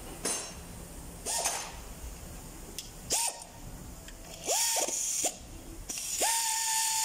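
Pneumatic wrench on a red air hose run in short bursts while undoing bolts on a Toyota 2GR V6 engine being torn down. Each burst rises quickly to a steady high whine with a hiss and cuts off. Several short bursts are followed by a longer run of over a second near the end.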